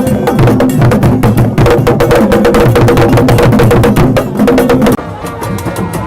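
Loud percussion-driven music: fast, dense drum strokes with many sharp clicks over a low pitched layer, dropping noticeably in level about five seconds in.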